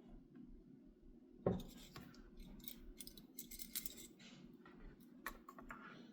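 Small tools and metal parts handled on a workbench during soldering: a sharp knock, then a quick run of light metallic clicks and scrapes, and a few more clicks near the end.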